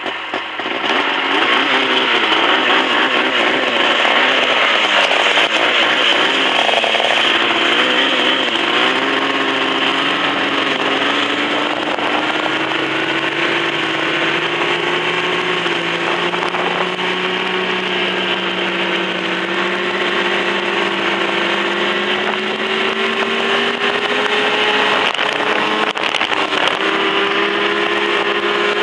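Ski-Doo Safari snowmobile's two-stroke engine running under way. Its revs waver up and down for the first several seconds, then settle into a steady note that slowly climbs as the sled gathers speed.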